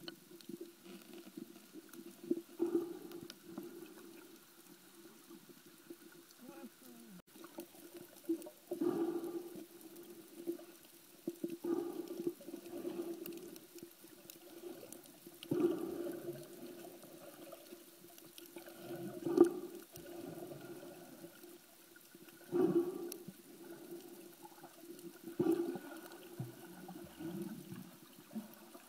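Muffled underwater sound: a steady low hum, with a swimmer's breathing and exhaled bubbles every three to four seconds.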